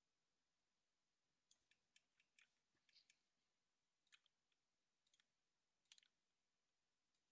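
Near silence with faint, scattered clicks of a computer mouse being worked, starting about a second and a half in and dying away after about six seconds.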